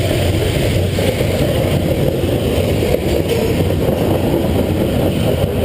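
Freight train's covered hopper cars rolling past on the rails: a loud, steady rumble.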